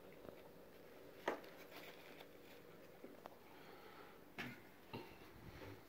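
Near silence: quiet room tone with a few faint clicks and light knocks, the sharpest about a second in.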